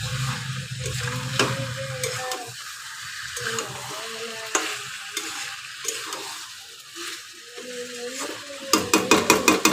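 Chicken pieces sizzling as they fry in a metal kadai while being stirred and turned, with occasional clicks of a metal utensil against the pan. In the last second the utensil scrapes and knocks against the pan rapidly, several clicks a second.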